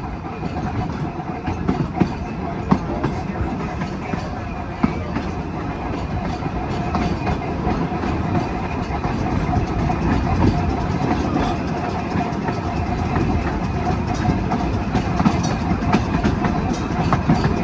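Double-truck Birney streetcar No. 355, built by the St. Louis Car Company, running along the track, heard from aboard: a steady rumble of steel wheels on rail with a steady hum underneath and occasional sharp clicks, growing a little louder toward the end.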